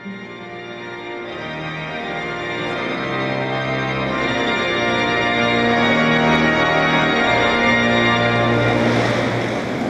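Music of long, held organ chords that swell steadily louder. A rushing noise comes in over it near the end.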